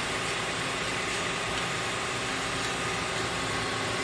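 Small 3-axis CNC milling machine running a 3D surfacing program: a steady spindle whine over an even hiss of machining noise.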